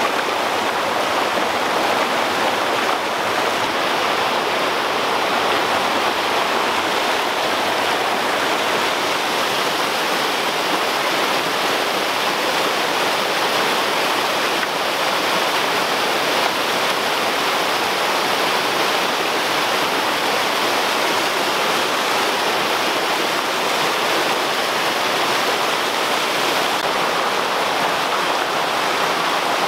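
Small waterfall cascading over boulders in a rocky creek: a steady, unbroken rush of falling water.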